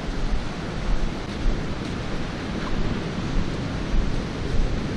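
Wind buffeting the camera microphone: a steady rushing noise with uneven low rumbling gusts.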